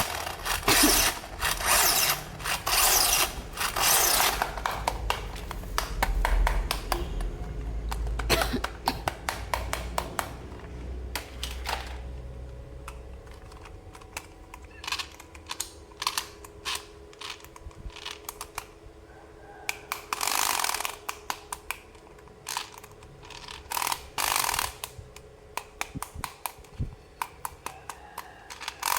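Hands unboxing and handling small plastic toy parts and their packaging: a steady run of small clicks and taps, with a few louder brief rustles near the start, about 20 seconds in and about 24 seconds in.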